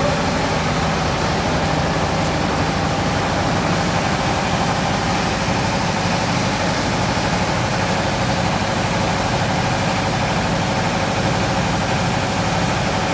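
Classic Vespa scooter's two-stroke single-cylinder engine idling steadily.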